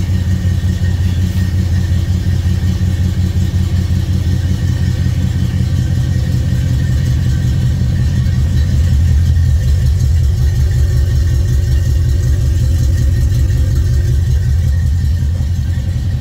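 1971 Chevy C10 pickup's engine, breathing through aftermarket headers, running steadily with a deep rumble that swells a little about halfway through.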